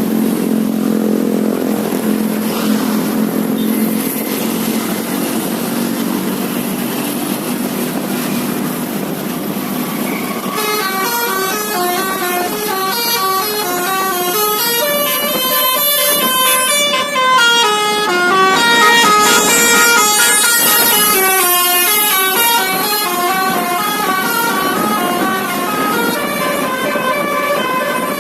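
A low steady drone for about the first ten seconds, then a telolet basuri multi-tone bus horn starts playing a fast melody of short stepped notes and keeps going through the rest.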